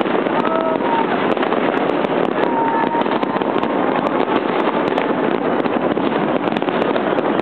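Many fireworks going off at once across a city: a dense, unbroken crackle made of countless sharp bangs, with no pause.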